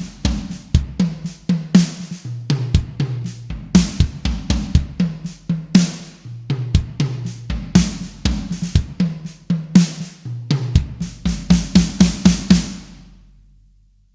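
Sampled acoustic drum kit from the EZ Drummer 3 Big Stage EZX library, recorded on a theatre stage, playing a steady groove of kick, snare, hi-hat and cymbals. The pattern stops near the end and the last hits ring out and fade.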